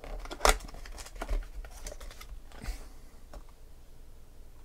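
Cardboard hobby box of 2011 Topps Finest football cards being torn open at the lid: a sharp rip about half a second in, more tearing and cardboard rustling around one and three seconds in, then a few light handling clicks.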